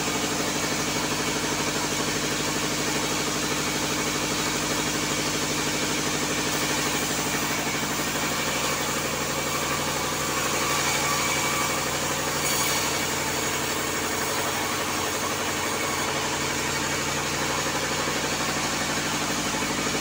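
A sawmill's vertical band saw runs steadily with a constant machine hum, its blade cutting through a timber slab that is fed along the table.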